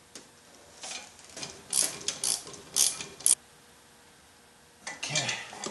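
Hand ratchet wrench clicking in about six short strokes, roughly two a second, as a bolt is run down, then stopping.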